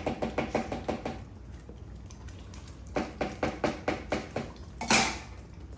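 Belgian Malinois licking yogurt and peanut butter off a spoon, quick wet laps about seven a second, in two runs. About five seconds in there is one short, loud rasp.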